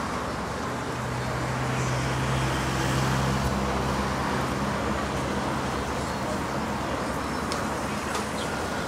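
Street traffic: a vehicle engine hum that swells a second or two in and then fades, over a steady haze of outdoor noise and faint voices.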